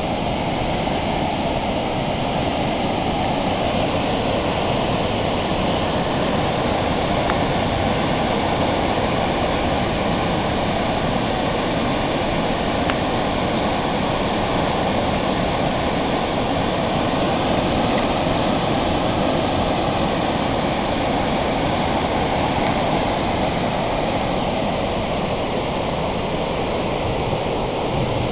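Steady rushing of a high-volume river pouring over a dam spillway and crashing into whitewater below.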